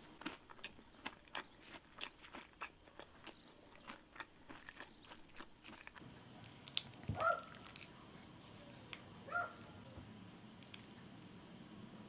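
Close, crisp crunching clicks, two or three a second, for about six seconds, then the knocks and short squeaky scrapes of a wooden spoon working through cut strawberries and yogurt in a wooden bowl.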